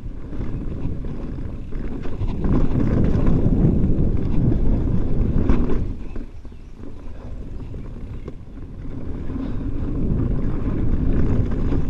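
Mountain bike riding over rocky dirt singletrack: tyre rumble with scattered knocks and rattles from the bike over rock, mixed with wind noise on the microphone. It eases off for a few seconds past the middle, then builds again.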